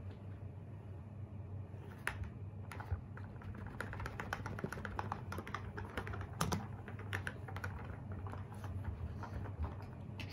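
Rapid, irregular light clicks and taps as a puppy plays with a plastic lint roller on a rug, starting about two seconds in, over a steady low hum.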